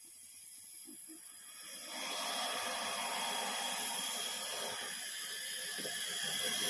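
Steady hiss of rushing air that starts about two seconds in and grows a little louder near the end.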